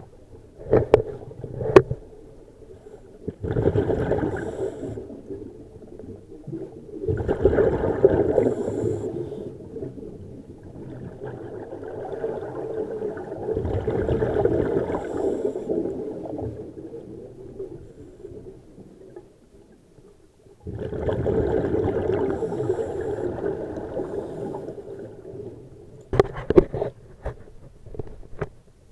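A scuba diver's regulator exhaust bubbles, heard underwater through an action-camera housing: four long bubbling swells, one with each exhalation, with quieter inhale pauses between them. A few sharp knocks on the housing come twice near the start and again as a cluster near the end.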